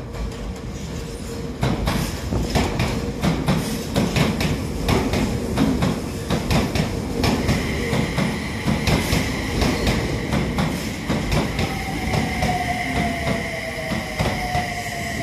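Toei Mita Line 6300-series electric train pulling into the station, its wheels clacking regularly over rail joints over a low rumble. A steady high squeal sets in about halfway, and near the end a whine falls in pitch as the train slows.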